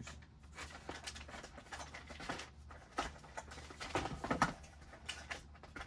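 Faint scattered clicks, taps and rustles of small tools being handled on a workbench, with a few sharper ticks about three and four seconds in.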